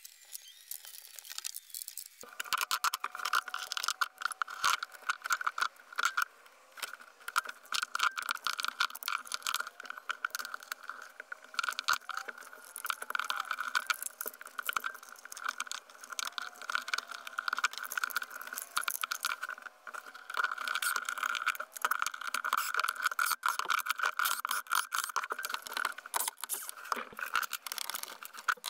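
Hand-work clicks, rattles and scrapes of electrical hardware: cable, duplex outlets and a plastic wall box being handled and fitted, and a wall plate set in place. A steady background hum comes in about two seconds in and runs under the clicks.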